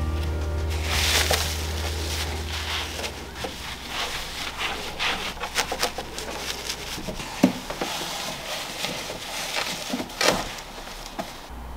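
Wooden cat tree parts handled during assembly: irregular light knocks, taps and rubbing of wood and padded platforms, with sharper knocks about seven and a half and ten seconds in.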